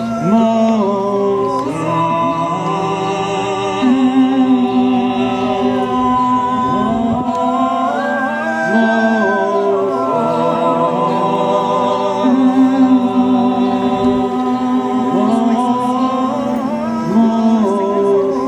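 Vocal music: several voices singing together in harmony, with long held notes and gliding pitches.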